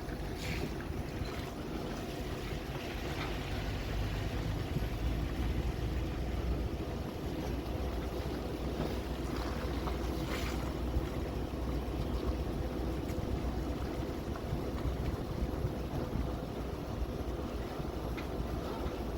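A vehicle being driven: steady low engine and road rumble.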